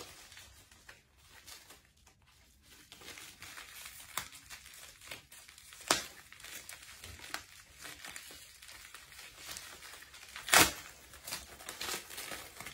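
Packaging being crinkled and torn open by hand, a package that is hard to get open, with scattered crackling and two sharp snaps about six seconds and ten and a half seconds in, the second the loudest.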